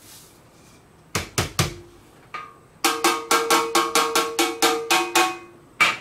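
Clear plastic dust case of a Makita cyclone vacuum being rapped against a stainless steel tray to knock out confetti clinging to it from static, the tray ringing with each hit. Three knocks, a lone one, then a run of about ten quick raps at roughly four a second, and one last rap near the end.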